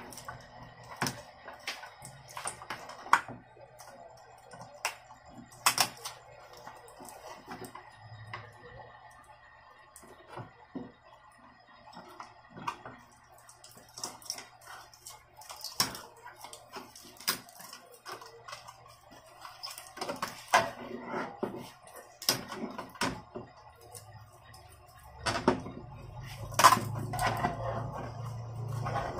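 Irregular plastic clicks and knocks as the black plastic frame of an LED TV is worked loose and lifted off its metal back chassis, with a denser run of clatter near the end. A low steady hum sits underneath at times.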